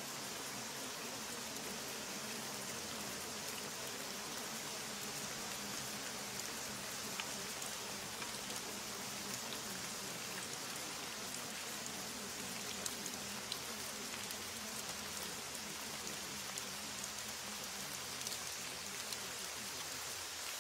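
Steady rain falling: an even hiss with scattered drop ticks, a few of them a little louder.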